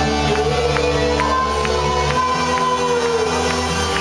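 Loud trance music over a club sound system: held synth chords and a slow, sliding vocal line over a steady beat. The deep bass drops out about halfway through.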